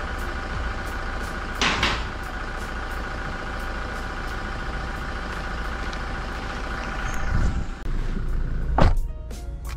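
Toyota Fortuner engine idling steadily, with a car door slammed shut with a single loud thud near the end.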